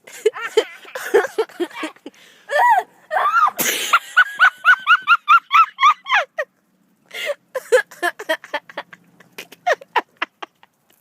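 People laughing hard in quick, high-pitched bursts, with one sudden noisy blast about three and a half seconds in. Scattered small clicks and taps follow near the end.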